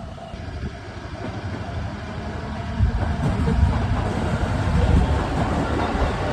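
JR Nambu Line train approaching and passing over the level crossing, a low rumble that builds and grows loud about three seconds in.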